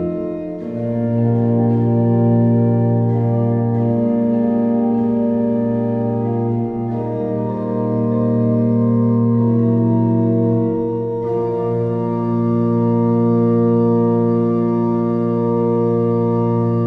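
Hauptwerk virtual pipe organ (sampled church pipe organ) playing slow, sustained chords that change every few seconds.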